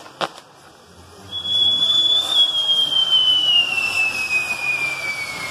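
Two sharp cracks, then about a second in a whistling firework starts a loud, piercing whistle that slides slowly down in pitch for several seconds, over the rushing of burning fireworks.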